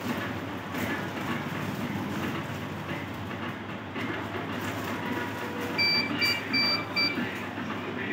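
Steady background din with a run of four short, high electronic beeps about six seconds in.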